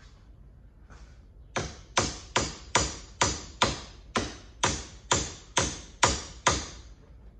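Hammer striking the metal of a Club Car DS golf cart's front suspension: about a dozen sharp, ringing blows, two or three a second, starting about one and a half seconds in. The blows are tapping the leaf spring bolt through its new bushings.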